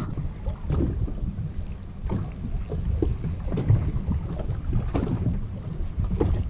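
Wind buffeting the microphone with a steady low rumble, over water slapping against the boat's hull in short irregular splashes and knocks.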